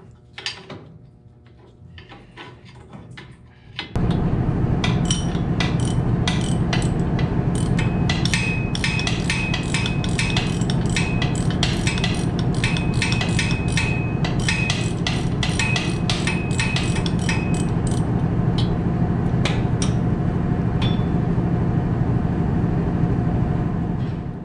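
A loud machine starts about four seconds in and runs steadily, with a constant low hum under a fast, irregular clatter of clicks and, for a while, a thin high tone coming and going.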